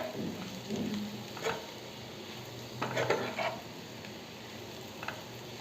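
Chicken gizzard pieces frying in masala, stirred in the pan, with a light sizzle and a few short scrapes and knocks against the pan.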